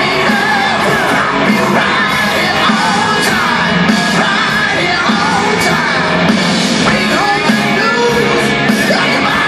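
Live rock song with singing and shouted vocals, played loud over a stadium PA system.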